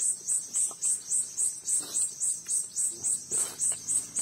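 Insect chirping in an even high-pitched pulse, about four chirps a second, with a few faint soft knocks underneath.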